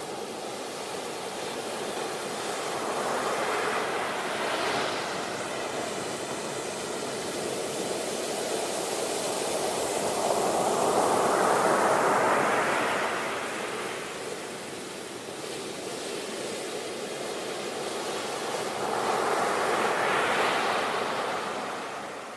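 Sea waves breaking and washing on the shore in a steady surf. Three waves swell and fade: a few seconds in, a larger one around the middle, and one near the end.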